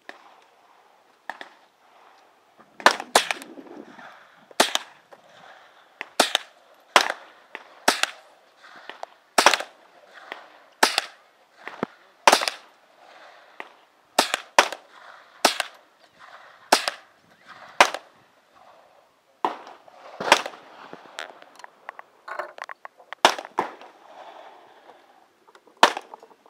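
Savage Model 64 FXP .22 LR semi-automatic rifle firing a series of single shots, about seventeen, irregularly spaced roughly one to two seconds apart, each a sharp crack with a short echo.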